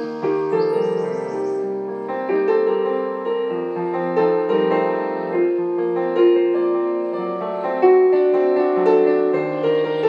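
Piano music: a melody of struck notes that ring on and overlap as they fade.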